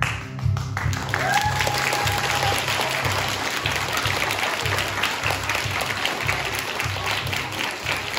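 Audience applauding as the dance music ends, with one long high cheer about a second in. A low beat of the music carries on underneath the clapping.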